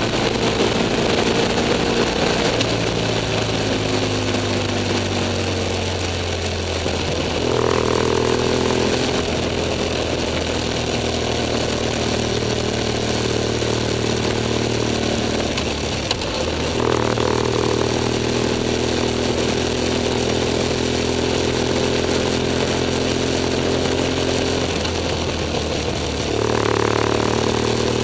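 BMW F 800 S parallel-twin engine running as the motorcycle rides along, its note holding fairly steady and then changing pitch three times, about a quarter of the way in, a little past halfway and near the end. A steady hiss of wind and road noise runs underneath.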